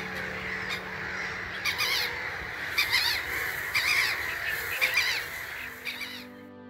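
Crows cawing: about eight short, harsh caws, mostly in pairs, over a steady outdoor hiss. Music fades in near the end.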